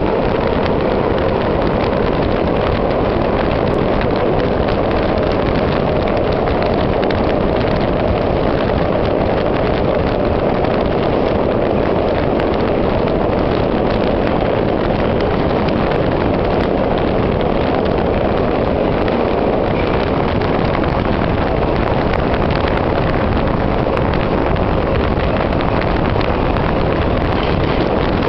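Ečs metro train running at speed through a tunnel: a steady, loud rumble of wheels on rails and running gear that holds unchanged throughout.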